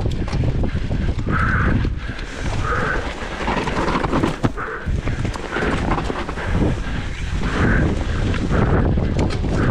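Wind buffeting the microphone and bike rattle on a fast enduro mountain-bike descent, with sharp knocks as the bike hits rough ground.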